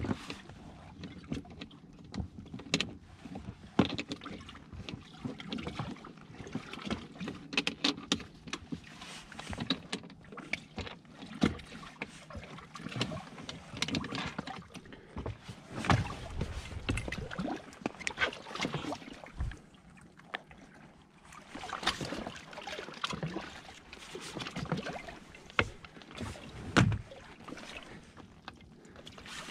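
Irregular clicks, knocks and clunks of hands working on a boat battery box and its cable plug, then handling and tilting up an outboard motor that is not running, aboard an inflatable boat.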